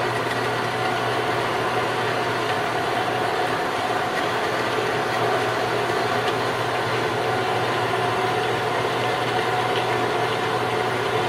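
JET 7-by-12-inch horizontal band saw running: its 3/4-horsepower electric motor and belt drive turning the blade with a steady hum and higher whine.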